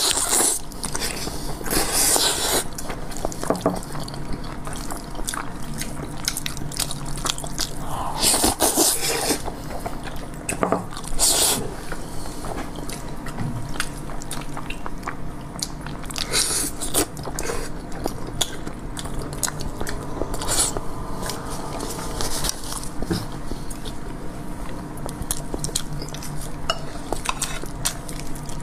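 Close-up eating sounds: zhajiangmian noodles slurped in loud short bursts every few seconds, with chewing and the clatter of chopsticks on dishes in between.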